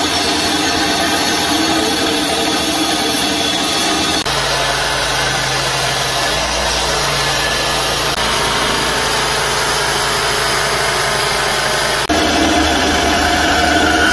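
Power tools working a wooden knife-handle block: a bandsaw cutting through the wood, then, about four seconds in, a belt grinder sanding it, steady until about twelve seconds in, when the bandsaw cutting returns.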